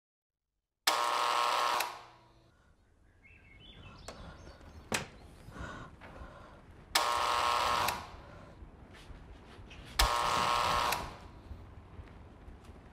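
Doorbell ringing three times, each ring a steady sound lasting about a second, the first about a second in and the other two about three seconds apart near the end.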